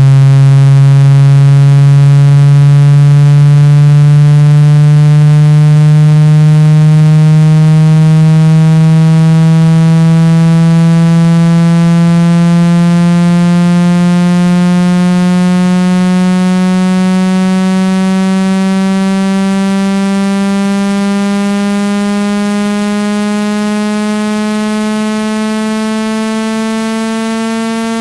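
Synthetic speaker-cleaning tone: a loud, low, buzzy tone that glides slowly upward in pitch and grows gradually a little quieter. It is played through a phone or speaker to vibrate the membrane and shake out trapped water and dust.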